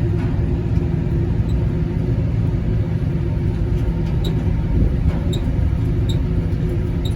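Direct-fired gas make-up air heating unit running: a steady low rumble from its supply blower and the open burner firing into the airstream.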